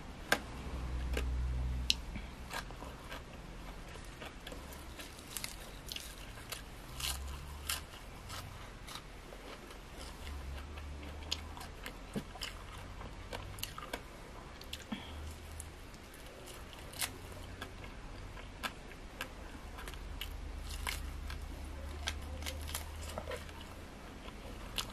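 Close-miked chewing with many small, sharp crunches, as crispy grilled frog is eaten with sticky rice.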